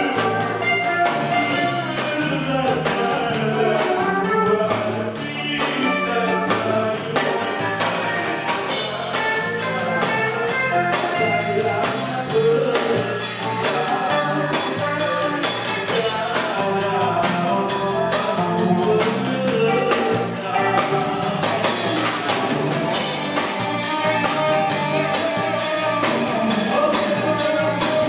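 Live amplified rock band playing, with two electric guitars, bass guitar and a drum kit keeping a steady beat.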